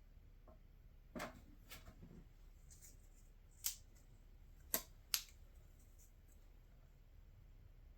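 A handful of light, sharp clicks as small parts are handled: a steel hex nut and 3D-printed plastic pieces tapping and clicking together while the nut is worked into its slot. The two loudest clicks come close together about five seconds in.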